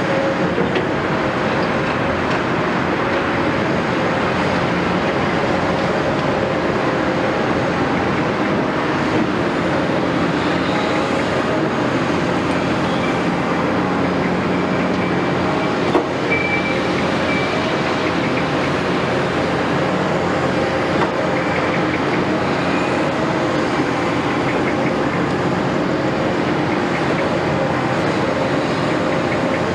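Heavy machinery running steadily, most likely the Caterpillar 329E excavator's diesel engine working. About halfway through there is a single knock and a brief high squeal.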